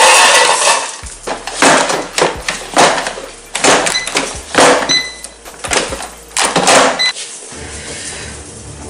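Frozen tater tots poured from a crinkling plastic bag, clattering into an empty air fryer basket, followed by the basket being slid back into the air fryer. The rattling and crinkling come in many loud uneven bursts and die down about seven seconds in.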